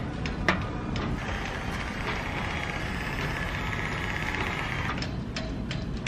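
Hand laminating roller rolled over epoxy-wetted fiberglass cloth on the hull, a fast dry rattle of ticks from about a second in until about five seconds in. A sharp click comes just before it.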